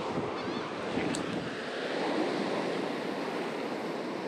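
Gulf surf washing onto the beach, a steady noise with wind buffeting the microphone; a light click about a second in.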